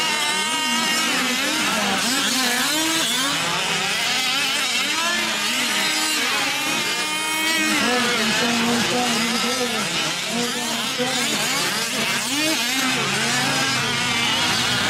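Several 1/5-scale RC off-road race trucks' small two-stroke petrol engines racing, revving up and down over one another with constantly rising and falling pitches.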